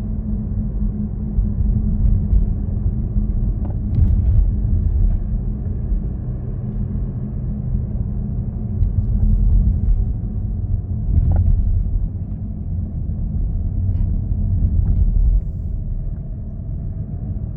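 Audi A6 C7 2.0 TDI with S tronic gearbox driving, a steady low rumble of the car in motion. A few short knocks or clicks come through about four, eleven and fourteen seconds in.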